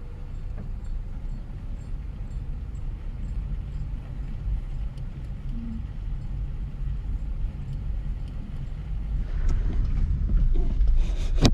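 Steady low rumble of a vehicle driving, engine and road noise, growing louder over the last few seconds, with a sharp knock just before the end.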